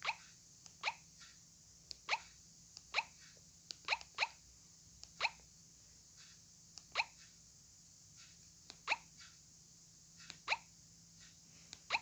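Keypad tones of a Texet TM-414 flip phone: short, slightly falling chirp-like beeps at an uneven pace of roughly one a second, each marking a button press as the menu is scrolled, with a few fainter key clicks between.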